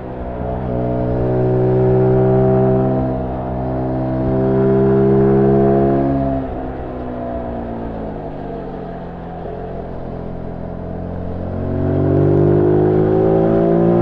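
A Zontes U1 125's single-cylinder engine and stock exhaust, heard on board under way. It pulls steadily with a brief dip about three seconds in. Around six seconds in the throttle closes and the engine note sinks as the bike coasts, then it picks up and rises again near the end.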